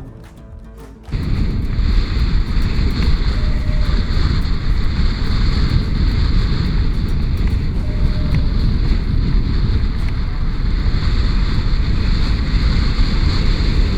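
Wind buffeting the microphone as a loud, steady rushing noise, cutting in abruptly about a second in after soft music.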